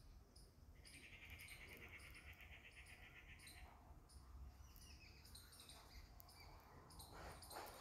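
Faint outdoor ambience: small birds chirping, and an insect's buzzing trill that starts about a second in and runs for about three seconds.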